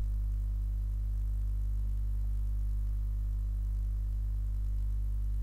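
Steady low hum, even in level and pitch, with no other sound over it.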